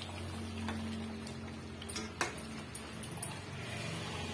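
A few sharp taps of a steel spoon against a stainless steel pot of simmering egg gravy, over a steady low hum.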